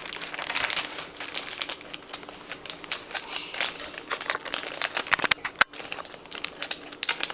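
The crinkly plastic wrapper of a toy blind bag being handled and cut with scissors. There are two sharp clicks a little past five seconds in.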